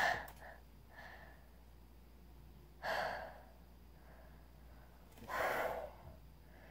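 A boy's heavy breaths or sighs close to the microphone: three short breathy puffs about two and a half seconds apart, with quiet room tone between.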